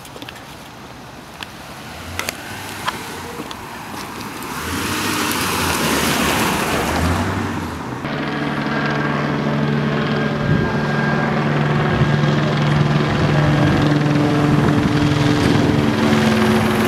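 A car passes with a rush of tyre and engine noise about five seconds in. Then an LAPD Airbus AS350 A-Star police helicopter flies low overhead: its rotor and turbine make a steady drone that grows louder as it comes nearer.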